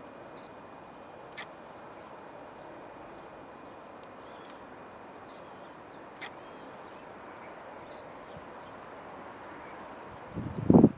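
Quiet open-air background hiss with a few faint short chirps and two sharp ticks, then wind buffeting the microphone in loud low gusts near the end.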